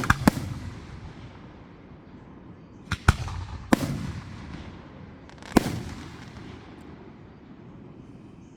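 Fireworks exploding in sharp bangs, each trailing off in a rolling rumble. A quick cluster of bangs comes at the start, then single bangs about three, four and five and a half seconds in.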